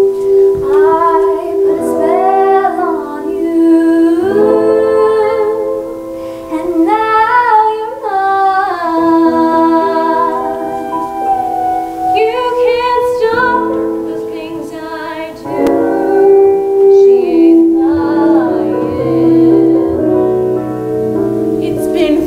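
High school show choir singing with instrumental backing, mostly women's voices, holding long notes with vibrato.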